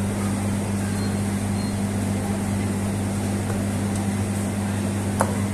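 Steady low electrical hum of shop machinery, with one sharp click near the end.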